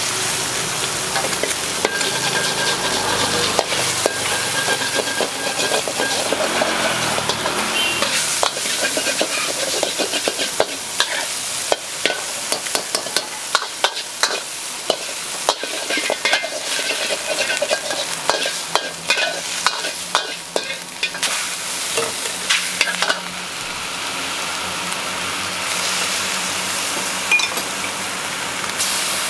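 Egg and chicken sizzling in hot oil in a steel wok, with a metal wok spatula scraping and clacking against the pan as the egg is scrambled. The rapid spatula strokes come thickest through the middle, and near the end the sizzle runs on more steadily.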